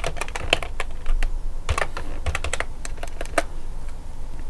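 Computer keyboard being typed on: irregular runs of short key clicks as a word is entered.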